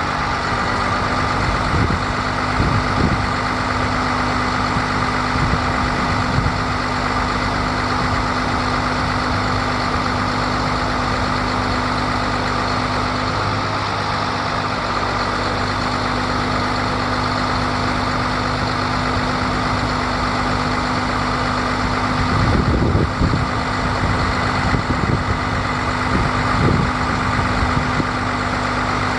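Diesel engine of a 2011 International 4300 bucket truck running steadily, with a steady whine over the engine hum and a few low knocks, briefly louder about three-quarters of the way through.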